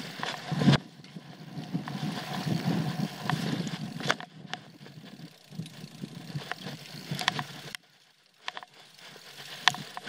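Trek Full Stache 8 mountain bike ridden down a rough dirt trail: tyre rumble and rattling over the ground, with many sharp clicks and knocks from the bike. The noise drops out for about half a second near the end.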